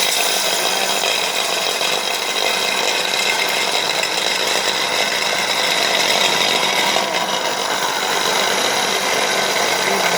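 Electric soy milk grinder running steadily, its motor and grinding burr chewing through soybeans fed in by hand, with a faint high whine over the grinding noise.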